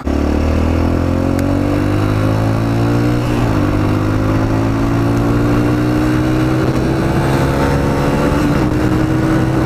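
2006 Kawasaki KLX125 dirt bike engine pulling hard on the road, its pitch climbing steadily. About three and a half seconds in it drops as the rider shifts up a gear, then climbs again more slowly.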